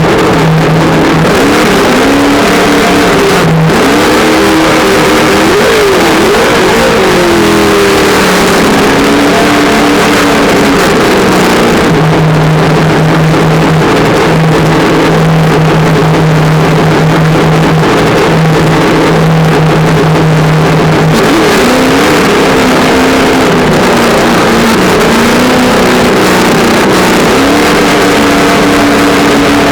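Traxxas On-Board Audio speaker in an RC truck playing a simulated engine sound, loud, its pitch rising and falling with the throttle, settling into a steady idle-like note through the middle stretch.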